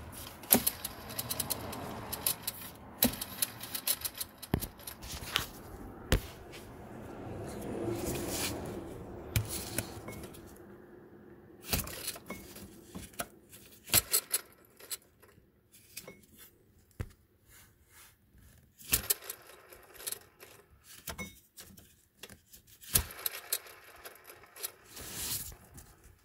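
Metal hand tools and engine pulley parts clicking and clinking as they are handled. There are scattered sharp clicks and knocks with quieter gaps between them, and quick runs of clicks a few times, the last near the end.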